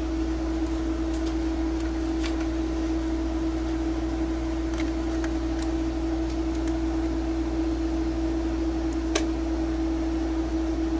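A steady electrical hum with an even pitch, with a few faint ticks and one sharper click about nine seconds in.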